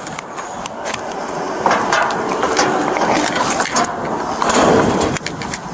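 Rustling and irregular clicks and knocks of movement picked up by a body-worn camera's microphone, with footsteps, as the wearer walks beside a metal dumpster.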